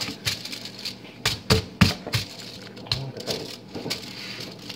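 Hands patting and slapping a raw ground-meat meatloaf on a foil-lined baking tray while shaping it: a run of irregular sharp slaps and pats, the loudest cluster between one and two seconds in.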